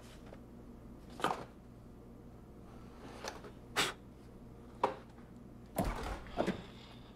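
Kitchen handling sounds: a few separate short knocks and clicks, then a cluster of louder knocks with a low thud near the end as a refrigerator door is pulled open.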